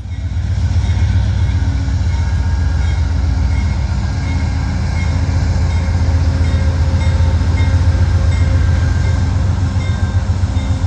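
Amtrak GE Genesis P42DC diesel locomotive passing with its passenger train: a loud, deep, steady rumble.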